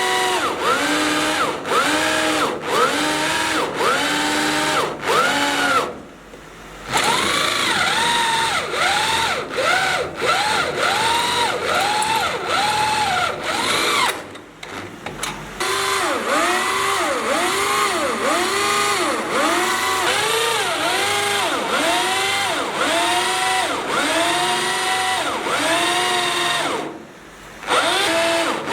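Power drill boring into steel. Its motor whine rises and falls in a steady pulse about twice a second, and it stops briefly three times before starting again.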